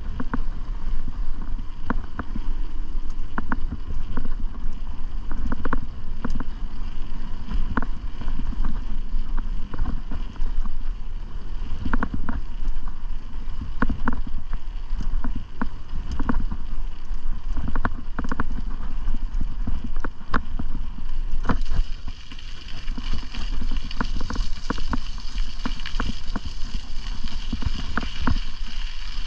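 Wind rushing over the microphone of a camera on a bicycle ride, with the bike rattling and knocking over bumps at irregular intervals. Near the end the low rumble eases and a higher hiss takes over.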